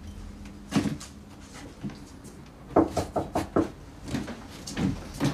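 A few clunks of things being handled at a kitchen counter, then a quick run of about six knocks on a door about three seconds in, and a few more knocks near the end.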